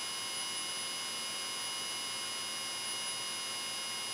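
Steady electronic hiss and hum from an aircraft headset intercom audio feed, with a faint whine of several high steady tones and no change throughout.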